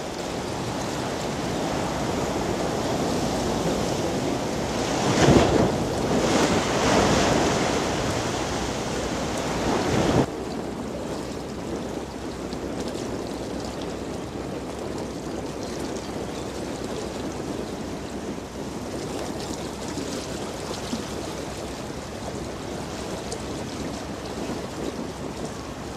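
Large ship's wake waves rushing and splashing against a riverbank. The water is loudest in the first ten seconds, then drops suddenly to a steadier, quieter wash.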